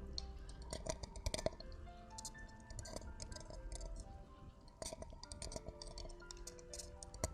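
Close-up crackling clicks and scratches from an ASMR trigger, scattered irregularly, over soft background music with long held notes.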